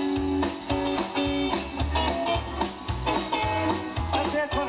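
Live country band playing an instrumental passage on guitars, bass and drums, with a steady beat and no singing.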